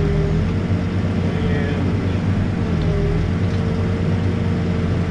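Backhoe's diesel engine running steadily at working revs while digging, its pitch sagging briefly twice, just after the start and about three seconds in.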